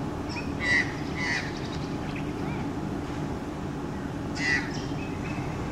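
Australian magpie giving short, harsh calls: two loud ones about a second in, a few soft chirps, and another loud one near the end, over a steady low background rumble.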